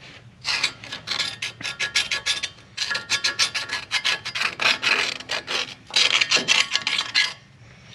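Screwdriver scraping caked grime and rust out of the grooves of the surface where a truck's front wheel hub seats: a quick run of short, rasping strokes with brief pauses, stopping shortly before the end.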